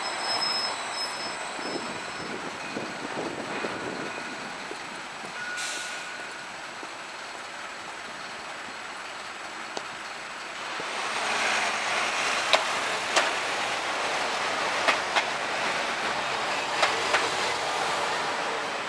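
Edinburgh tram (CAF Urbos 3) running past in street traffic, a thin high whine from it dying away in the first second or so. From about eleven seconds in the traffic noise grows louder, with a series of sharp clicks.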